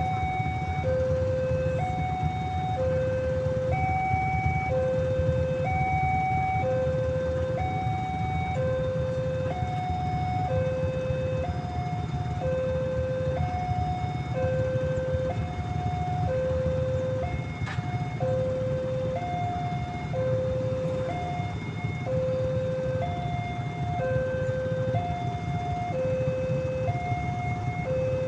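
Indonesian railway level-crossing siren sounding its electronic two-tone warning, a higher and a lower tone alternating about once every one and a half seconds, with a brief stutter in the pattern partway through. A steady low rumble of engines runs underneath.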